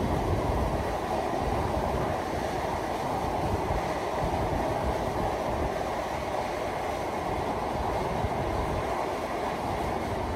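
Benapole Express passenger train running along the track: a steady rumble and rush of wheels on rails.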